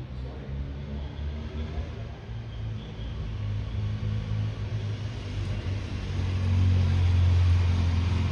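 Urban street traffic: a steady low engine rumble that swells as a vehicle passes near the end.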